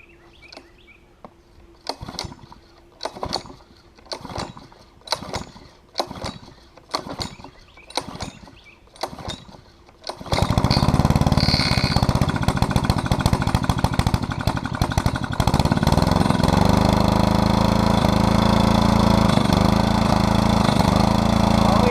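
Small single-cylinder minibike engine being pull-started with the choke closed after a carburetor cleaning: about eight quick pulls on the starter, then it catches about ten seconds in and keeps running steadily and loudly.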